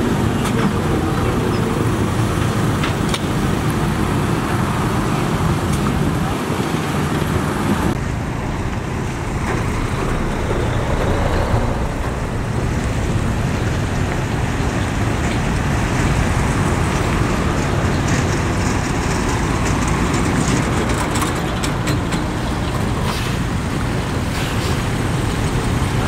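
Diesel engines of heavy earthmoving machines running among road traffic, a steady low rumble. The sound changes abruptly about eight seconds in, from a tracked excavator digging to a bulldozer pushing soil.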